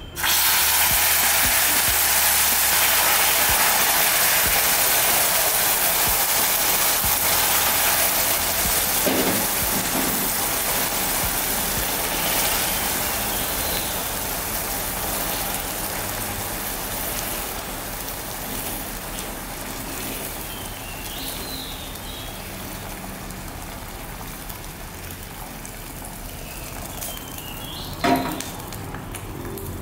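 Hot water poured into molten caramelised sugar in a pan: a sudden loud sizzling hiss and bubbling that sets in at once and slowly dies down as the foaming settles. A single knock near the end.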